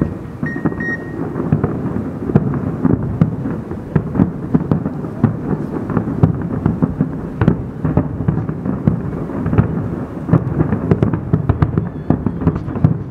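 Large aerial fireworks display: dense, overlapping shell bursts making a continuous rumble, with many sharp cracks on top.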